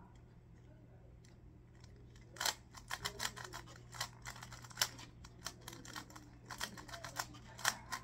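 Magnetic Rubik's cube being turned quickly by hand: a fast, uneven run of plastic clicks and clacks as its layers are twisted, starting about two and a half seconds in.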